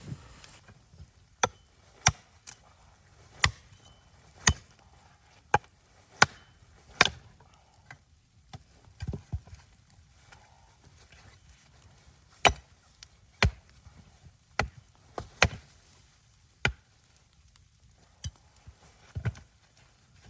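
Wood being chopped: about fifteen sharp strikes at an uneven pace of roughly one a second, with a pause partway through and a few lighter knocks between.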